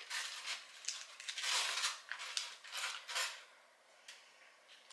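Wooden chopsticks clicking and scraping against a plastic sushi tray while sushi pieces are picked up, a run of short sharp clicks and rustles, loudest about one and a half seconds in.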